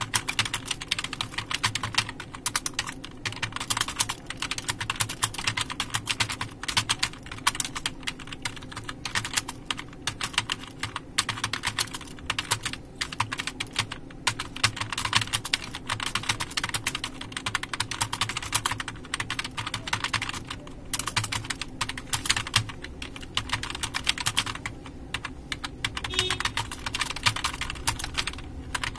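Fast, steady typing on a computer keyboard, the keys clicking several times a second with a couple of brief pauses about 20 and 25 seconds in.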